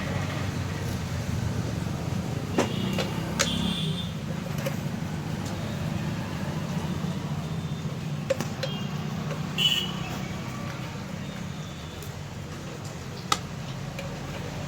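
About five sharp metal clinks of spanners and bolts as a scooter's rear wheel is bolted back on, the loudest a little past the middle, over a steady low rumble of road traffic.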